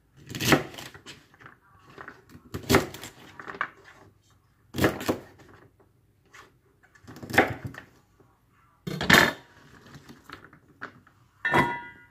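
Kitchen knife chopping through a bundle of garlic scapes onto a cutting board: a short burst of chops about every two seconds, six in all. The last burst carries a brief metallic ring.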